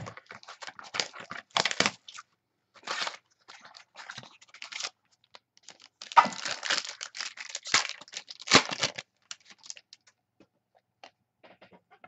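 Foil wrapper of a trading card pack being torn open and crinkled by hand, in irregular dry rustling bursts that are busiest in the middle, with a few light clicks and shuffles of cards being handled.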